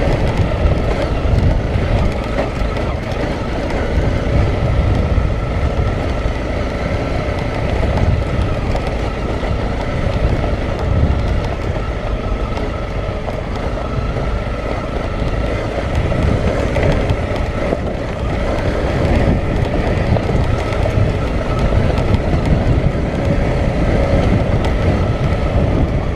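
Honda single-cylinder four-stroke dual-sport motorcycle running at low speed in low gear, heard from the rider's helmet, with its chassis rattling and jolting over loose lava rock.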